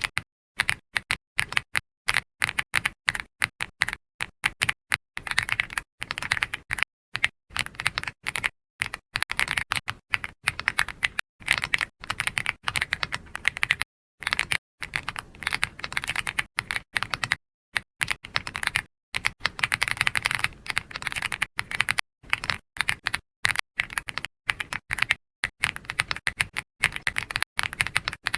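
Computer keyboard being typed on in fast, continuous runs of keystrokes, with a few short pauses between runs.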